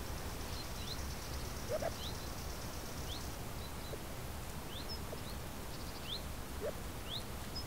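Ambient soundscape: a steady low rumble with short, high, rising birdlike chirps about once a second, and a few brief lower blips.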